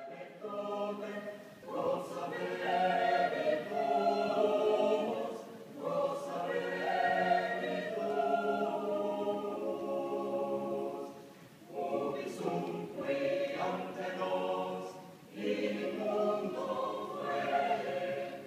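Mixed choir singing a cappella in long phrases, with brief breaks between phrases about six, twelve and fifteen seconds in.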